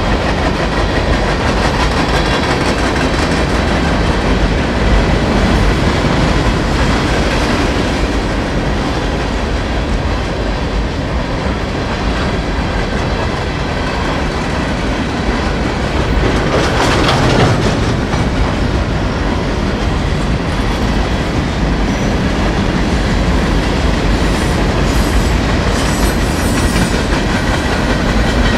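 A long string of freight boxcars rolling past close by: a steady rumble and clatter of steel wheels on rail, briefly louder a little past halfway.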